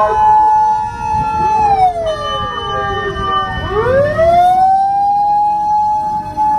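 Japanese fire engine sirens wailing together. One siren sinks slowly in pitch, climbs back up about halfway through and holds high, over the steadier tones of the other sirens.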